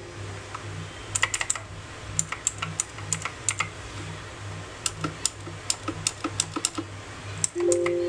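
Keys on a Lifetech Phantom RGB mechanical keyboard being pressed one after another, giving irregular sharp clicks, some in quick runs. The switches are clicky non-Cherry MX switches from a Chinese maker, and some keys sound a little different from others.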